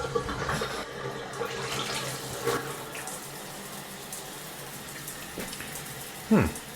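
Shower head spraying water from a newly installed Moen Posi-Temp valve at low flow, which the plumber suspects comes from debris caught in the shower head. About six seconds in, a short, loud sound slides quickly down in pitch.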